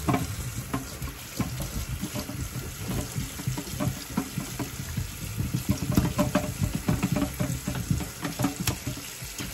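Kitchen sink tap running while hands are rinsed under the stream, the water splashing irregularly.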